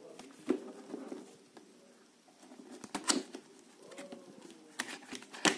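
A cardboard keyboard box being handled and worked open by hand: scattered sharp knocks, taps and scrapes of cardboard and packaging, the loudest about half a second in, about three seconds in and right at the end.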